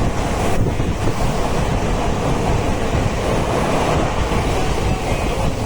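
Indian railway train running, a steady loud low noise with no break.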